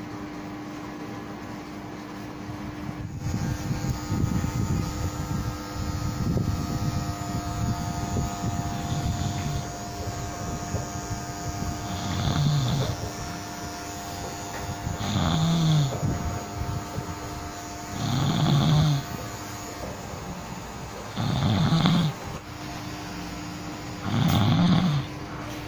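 A person in deep sleep, snoring. About halfway in the snores turn loud and regular, each about a second long and coming about every three seconds.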